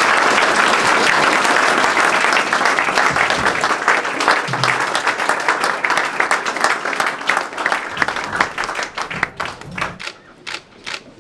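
Audience applauding: dense clapping that thins to scattered single claps and dies away near the end.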